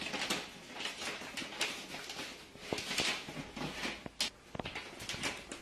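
Wrapping paper rustling and crinkling as hands handle it, in short irregular crackles.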